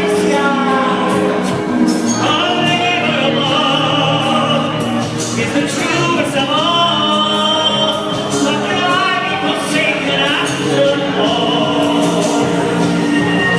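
A song with a vocal line holding long, wavering notes over backing music.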